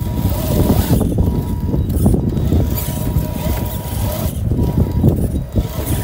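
Electric scale RC rock crawler whirring steadily as it crawls over rocks. Wind rumbles on the microphone throughout.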